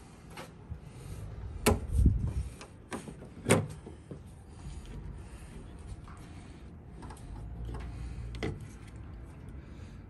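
Black plastic exterior door handle of a Chevy Silverado being worked loose from the door: several sharp clicks and knocks of the handle and tool against the door's sheet metal, most in the first four seconds, with a low thud about two seconds in.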